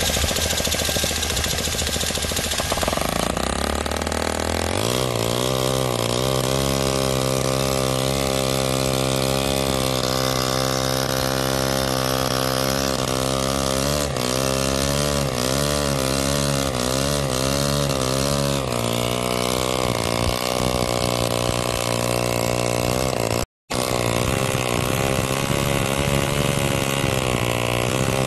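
MUSA FV1A 7cc single-cylinder overhead-valve model gasoline engine being spun by a starter for about four seconds, then catching and running steadily. Its pitch wavers for a few seconds midway and settles to a slightly different note. There is a brief break about three-quarters of the way through.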